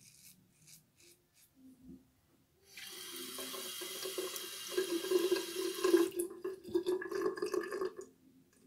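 Bathroom tap running into the sink for about five seconds, starting about three seconds in, as the safety razor is rinsed under the stream between passes. Before it, a few faint scrapes of the razor on lathered stubble.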